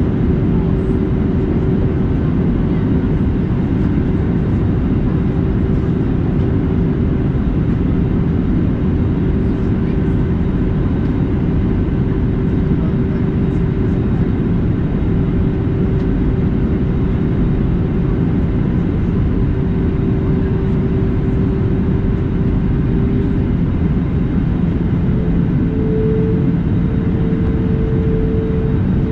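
Steady airliner cabin noise aboard an Airbus A320neo in flight: a loud low rumble of engines and airflow, with a steady hum that steps up in pitch about 24 seconds in.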